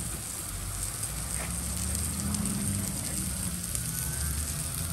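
Food sizzling as it cooks: a steady hiss dotted with fine crackles, over a low rumble.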